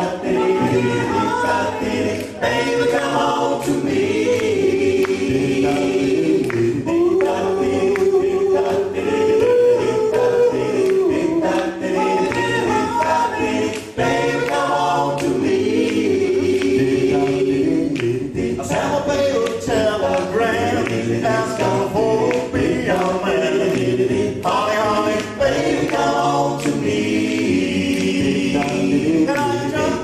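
Male a cappella doo-wop group singing in close vocal harmony into microphones, voices only with no instruments.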